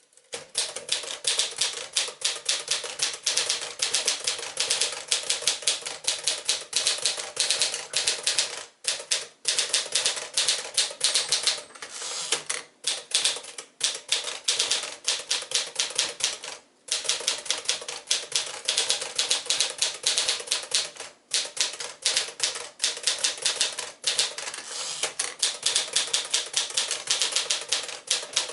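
1955 Smith-Corona Silent-Super manual portable typewriter being typed on at a quick, steady pace: a fast run of crisp keystroke clacks, several a second, broken by a few brief pauses.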